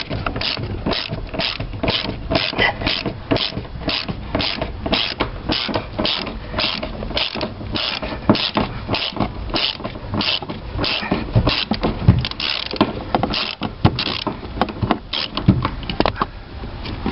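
Ratchet wrench clicking in quick, even back-and-forth strokes, about two and a half a second, backing out a rusty T45 Torx bolt on the seatbelt. The clicking stops near the end.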